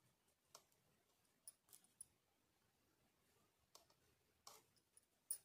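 Knitting needles giving faint, irregular clicks as stitches are worked: about seven small taps, the last near the end the loudest.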